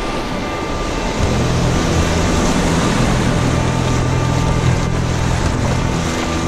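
Steady rush of churning whitewater in a class I rapid around an open canoe, with background music underneath that gains a low bass line about a second in.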